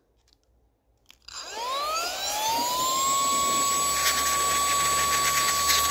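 A small high-speed electric motor clicks on about a second in and spins up, its rising whine settling into a steady high-pitched tone over a loud rush of air.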